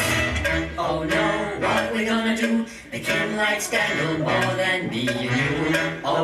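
A recorded song played over loudspeakers: a male voice singing over a steady beat.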